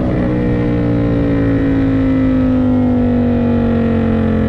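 Indian FTR 1200's V-twin engine running under way, with a short break in its note right at the start; its pitch then falls slowly and steadily as the revs drop.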